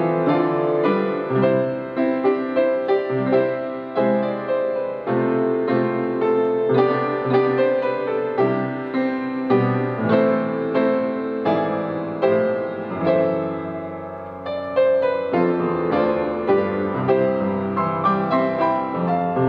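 Upright piano played solo, a chordal piece with notes struck and held. The playing softens briefly about two-thirds of the way through, then swells again.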